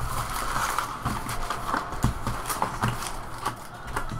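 Foil-wrapped 2015-16 Upper Deck Series 1 hockey card packs crinkling and rustling as they are pulled out of the hobby box, with irregular soft taps as they are set down on a stack.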